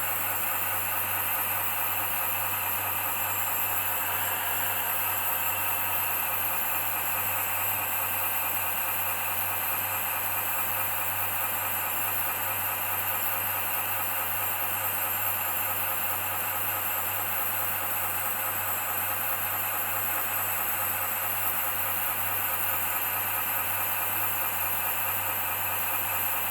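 A 1/14 scale hydraulic RC excavator running with one track driving and the upper body slewing at the same time: a steady whir of its hydraulic pump and brushless track and slew motors, mixed with its sound module's engine sound.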